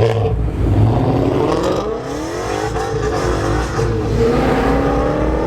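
A muscle car's engine accelerating hard past, its pitch climbing steadily and then climbing again after a brief drop, over a heavy low rumble.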